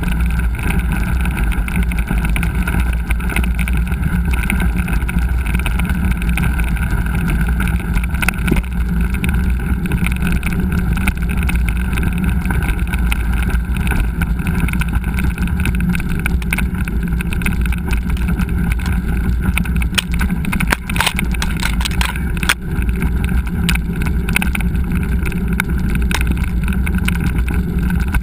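Steady wind and riding noise on a GoPro's microphone while a mountain bike rolls along a trail, with scattered knocks and rattles from the bike, most of them about two-thirds of the way through.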